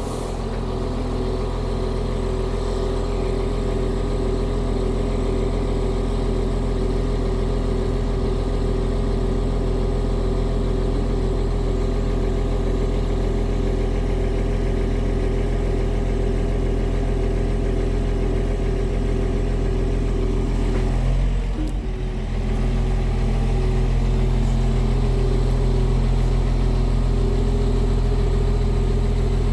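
Scania R truck's diesel engine running steadily, driving the loader crane's hydraulics while the crane boom is moved. About 21 seconds in the sound briefly dips and wavers, then runs a little louder and deeper.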